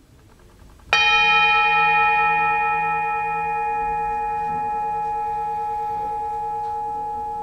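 Old Tibetan singing bowl, tuned to E and B, struck once with a mallet about a second in and left ringing: many bright overtones over a long, slowly fading tone whose lowest note wobbles quickly.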